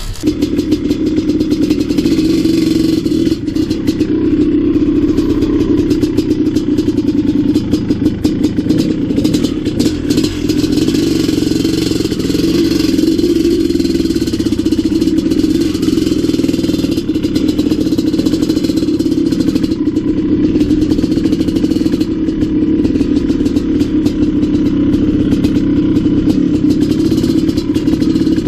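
Maico 700 dirt bike's big single-cylinder two-stroke engine running at a fairly steady speed while the bike is ridden along a gravel road.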